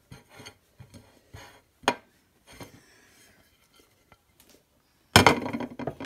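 Small taps and scrapes of a hand and a ceramic plate as chopped jalapeños are pushed off it onto a casserole dish, with a sharp clink about two seconds in. About five seconds in comes a louder clatter and rustle lasting about a second, the loudest sound here.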